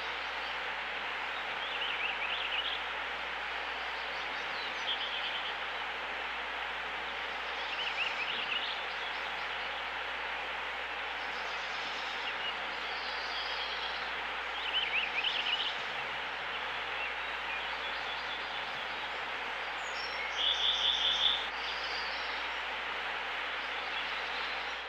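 Small birds chirping and singing in short phrases every few seconds over a steady outdoor background hiss. The loudest phrase is a quick rapid run of notes about twenty seconds in.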